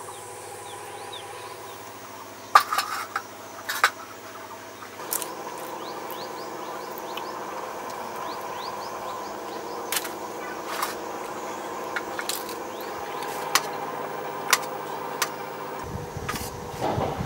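Steel plates and bowls clinking sharply now and then during serving and eating, over a steady drone of several held tones that shifts about five seconds in. Faint high chirps come and go, and a low rumble enters near the end.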